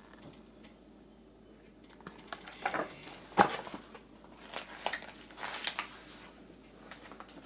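Faint rustling and light clicks of something being handled, with one sharper click about three and a half seconds in.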